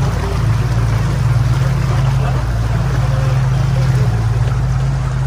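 A motorboat's engine running steadily under way with a low drone, over a constant rush of water from the wake.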